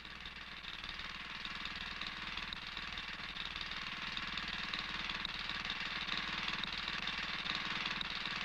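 A small engine running steadily with a fast, even pulse, slowly getting louder.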